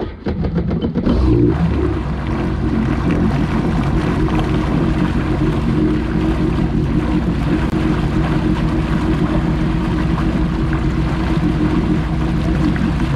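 Jet ski engine catching in the first second with a few rough pulses, then running at a steady speed with an even, unchanging drone.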